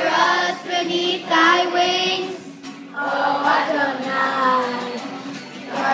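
A large group of children singing a slow song together, with long held notes.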